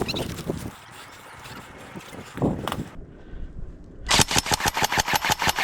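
Airsoft gun firing a rapid full-auto burst, about ten shots a second, for about a second and a half near the end. Before it, scattered clicks and rustling.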